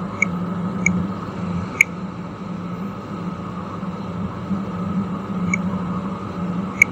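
Steady low background hum with a few short, sharp clicks scattered through it, the loudest about two seconds in.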